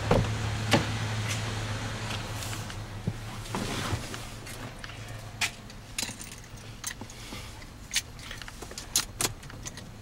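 Someone settling into a parked car: a knock just after the start, then scattered sharp clicks and light knocks of handling in the cabin, with keys jangling. A low steady hum fades out about four seconds in.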